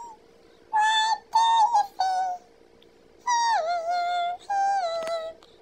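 A voice pitched up high and squeaky by a phone camera's voice-changing filter, in about five short phrases whose pitch glides up and down. A faint steady hum runs underneath, and a brief click comes near the end.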